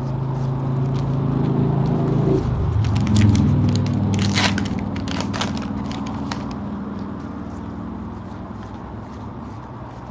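Wrapper of a baseball card pack crinkling and tearing open, with a cluster of sharp crackles in the middle, loudest about four seconds in. Under it runs a low droning hum that shifts pitch about two seconds in and fades out well before the end.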